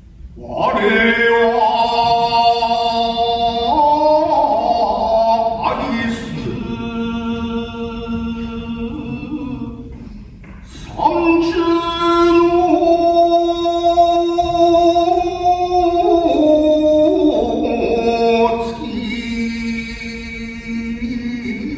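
Shigin, Japanese classical poetry chanting: a voice holding long drawn-out notes that step slowly up and down in pitch, in two long phrases with a breath about ten seconds in.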